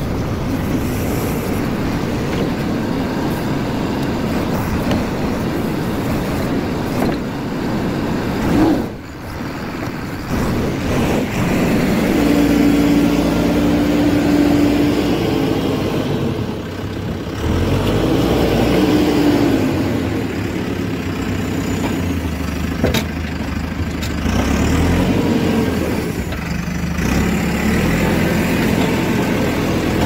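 JCB 4CX backhoe loader's diesel engine running as the machine manoeuvres on a dirt road, its pitch rising and falling several times in the middle stretch.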